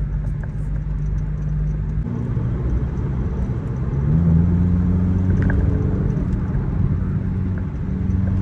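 Car engine and road noise heard from inside the cabin while the car accelerates at highway speed. The engine note changes about two seconds in, then climbs and grows louder about four seconds in.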